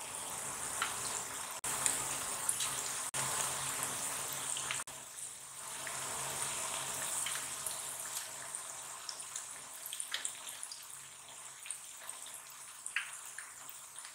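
Hot oil sizzling and bubbling around red lentil (masoor dal) pakora batter frying in a pan, with scattered small pops. It is louder for the first few seconds, then settles to a softer sizzle.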